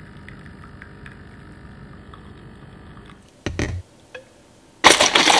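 Capsule espresso machine running as it dispenses coffee into a glass of milk: a steady low pump hum with faint ticking. After about three seconds it stops, followed by a knock, a click and a loud, short clatter near the end.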